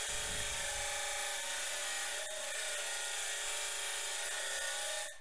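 Abrasive cutoff wheel on a Baldor buffer motor grinding a steel knife blank, a steady grinding hiss with a faint whine running through it. It cuts off suddenly near the end as the blade comes off the wheel.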